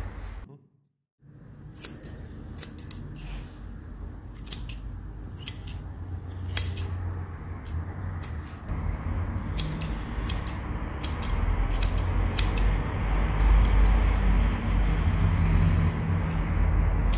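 Grooming scissors snipping through a dog's fur in quick, irregular snips, over a low steady rumble.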